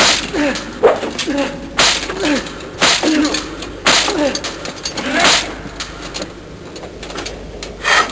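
A massed body of soldiers giving rhythmic war cries, about one a second, each cry starting with a sharp crash of struck weapons, with a longer pause before the last one.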